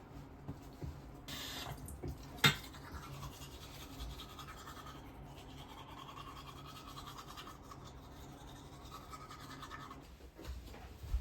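A toothbrush scrubbing, with a sharp click about two and a half seconds in and a brief hiss just before it.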